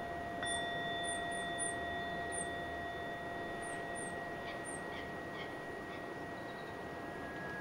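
Ambient music of long, steady ringing tones in the manner of a tuning fork or singing bowl, with a new tone struck about half a second in and held. Faint, short, high bird chirps come over it, mostly in the first few seconds.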